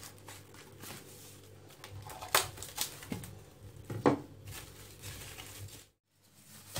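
Cling-film-wrapped dough and a roll of cling film being handled on a stone countertop: a few sharp knocks and taps, the loudest about two and a half and four seconds in, over a faint low hum, cutting out briefly near the end.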